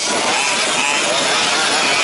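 Several 1/5-scale petrol RC trucks' small two-stroke engines revving, their pitches rising and falling as they race.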